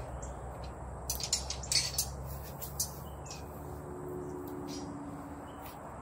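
Quiet yard ambience: a low, steady rumble with a few short, high ticks scattered through the first three seconds.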